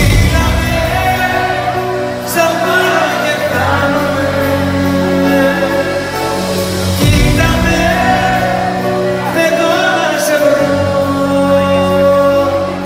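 Live Greek pop ballad: a male singer's voice over a backing band with a steady bass, played through a PA in a large hall.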